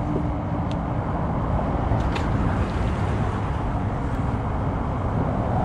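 Steady outdoor rumble and hiss, heaviest in the low end, with a faint click about two seconds in.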